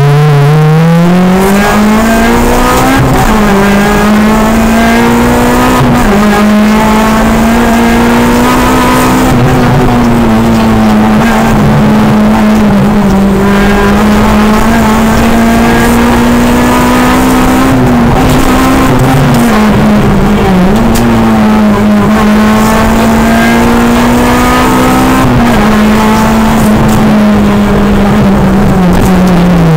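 Honda Civic Type R rally car's four-cylinder engine heard from inside the cabin, pulling hard at full throttle. The revs climb in the first few seconds, then stay high with several short dips at gear changes.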